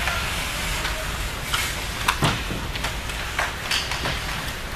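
Ice hockey play on a rink: several sharp clacks of sticks and puck, with brief skate scrapes, mostly in the middle seconds, over the rink's steady low rumble.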